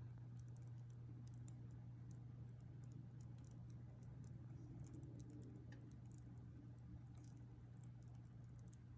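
Marineland Penguin BioWheel aquarium filter running faintly: a steady low hum with scattered, irregular light ticking and pattering of water.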